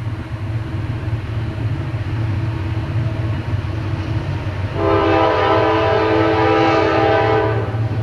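Approaching Norfolk Southern diesel freight locomotives, their engines a steady low rumble, sound one multi-chime air-horn blast of about three seconds, beginning a little before halfway through and cutting off near the end.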